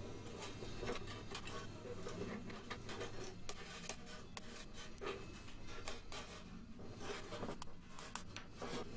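Scattered light taps and clicks as a steel G-clamp is screwed tight and a hammer works the thin sheet-steel panels of a welded horse-head sculpture, pulling in the gaps at the nose.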